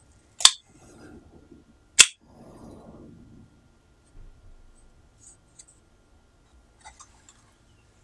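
Electric solenoid door lock clacking twice, about a second and a half apart, as its latch pulls in and snaps back out after the punched card is swiped through the laser reader. A softer rustle follows each clack, and a few faint ticks come near the end.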